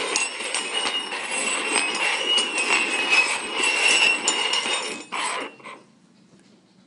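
Stainless steel cups being slid and shuffled across a wooden tabletop, a continuous metallic scraping and clinking with faint ringing, stopping abruptly about five and a half seconds in.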